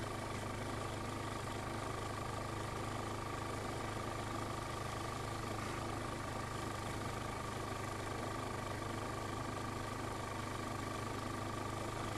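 Steady, even mechanical hum and hiss with a faint constant high tone, with no change in level throughout.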